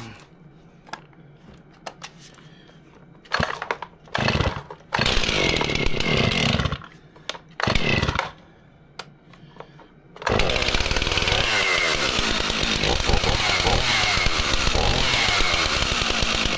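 Chainsaw being started: a few short loud bursts that die away, then about ten seconds in it catches and runs steadily, turning over its freshly re-tensioned chain.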